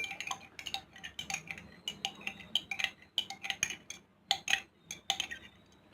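A spoon stirring lime juice and soy sauce in a glass, clinking against the glass about four times a second with a brief pause about four seconds in, and a faint ringing from the glass.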